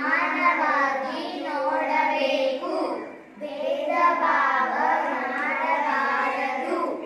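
Group of young girls singing a song together, with a short break for breath about three seconds in.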